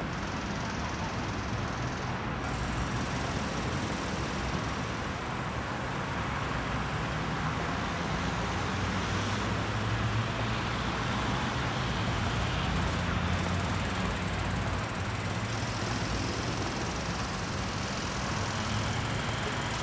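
Steady city street traffic: an even rumble of passing vehicles that swells a little about halfway through.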